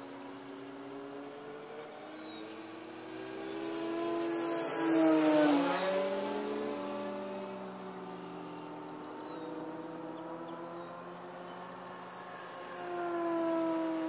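Electric RC aerobatic plane, an Extreme Flight 48" MXS with a Torque 2814/820 brushless motor turning a 12x6 APC propeller, flying overhead. Its whine rises and falls in pitch as the throttle and distance change. It is loudest about five seconds in on a close pass, its pitch dropping as it goes by, and swells again near the end.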